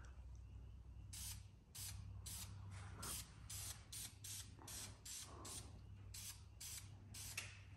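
Aerosol spray-paint can hissing in short, quick bursts, about three a second, starting about a second in, as paint goes onto a truck's metal body panel. A faint steady low hum runs underneath.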